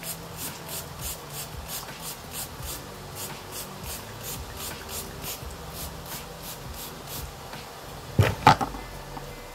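Wig hair being brushed in quick, even strokes, about three a second, then two sharp knocks near the end.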